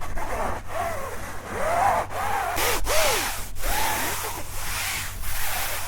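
Close-up rubbing strokes on a TASCAM recorder's microphones, several with a squeaky pitch that rises and falls.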